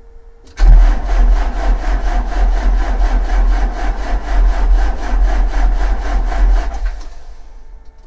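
Starter cranking a Perkins 1104C-44 four-cylinder diesel for about six seconds, an even rapid pulse of compression strokes, without the engine ever firing: a crank-but-no-start that the owner comes to put down to a weak electric lift pump not delivering fuel.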